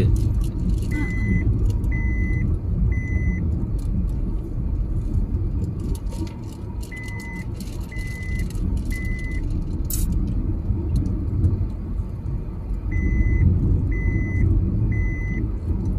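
Car driving at steady speed, the low rumble of tyres and engine heard from inside the cabin. A high beep sounds in sets of three, a set about every six seconds.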